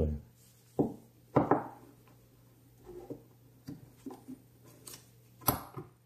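Sharp metal clicks and taps from a small screwdriver and pin working the metal parts of a gas lighter's top mechanism. The loudest click is about a second and a half in, another comes near the end, and there are lighter ticks in between.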